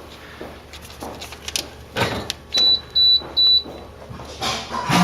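Refrigerator door-open alarm giving three short high-pitched beeps about halfway through, a sign the fridge door is standing open. Glass bottles knock and clink against each other and the shelves.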